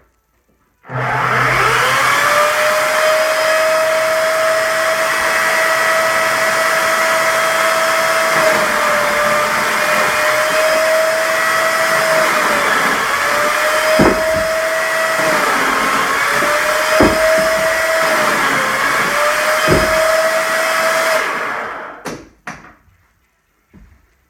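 Makita electric chainsaw starts up about a second in and runs with a steady whine, its pitch dipping several times as the chain takes load in the wood, with three sharp knocks in the middle. It winds down near the end.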